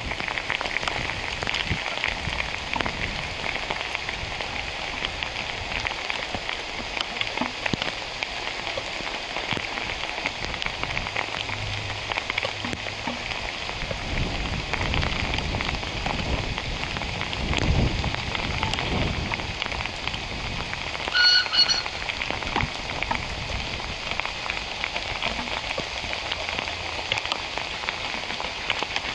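Heavy rain falling steadily, a dense hiss of drops. A short high whistle cuts through about three-quarters of the way in.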